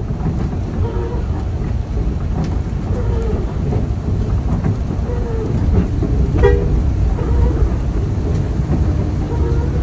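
Intercity bus cabin noise: the engine's low rumble with rain on the windscreen, and a short horn toot about six and a half seconds in.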